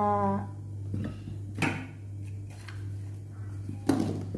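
A few light knocks and clatters of kitchen bowls and utensils being handled, the loudest near the end as a bowl is brought over to the chopping board. A steady low hum runs underneath.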